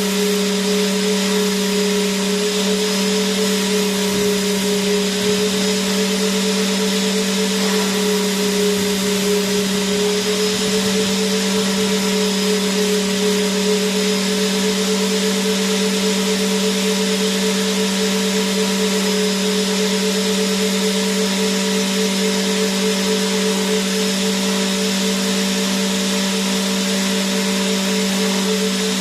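Vacuum cleaner motor running continuously at a steady speed: a low hum with a slightly wavering higher whine over a broad airy hiss.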